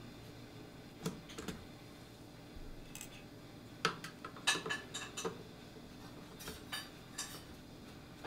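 Scattered light metal clicks and clinks of screws being undone with a screwdriver on a Nerf blaster's metal U-channel, with a quick run of clinks in the middle.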